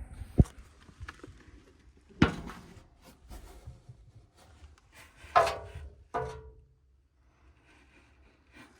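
Handling knocks and scrapes as a badly clogged furnace air filter is worked at in its slot. There are four sharp thunks, about half a second, two, five and six seconds in, with rubbing between them, and the last two ring briefly like sheet metal.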